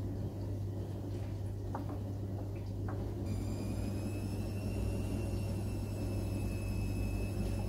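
Steady low electrical hum and rumble at the hob, with two light clicks of a spoon against the pot. About three seconds in, a high-pitched whine of several tones starts suddenly and holds.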